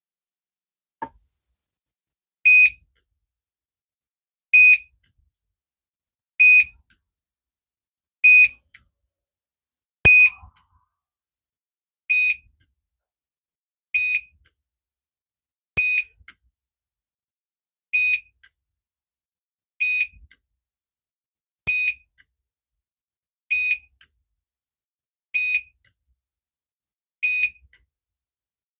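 Electronic beeper sounding short, high-pitched beeps at a steady rate of about one every two seconds, starting a couple of seconds in, with a few faint clicks between them. The beeps come from a battery spot welder's control board in use on the pack's nickel strips.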